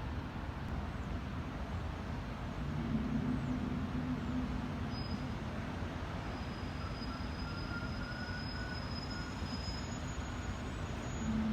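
Low, steady rumbling drone from the sky, the so-called 'sky trumpet' sound, with a deeper pitched hum swelling about three seconds in and again near the end, and faint thin high whistling tones above it.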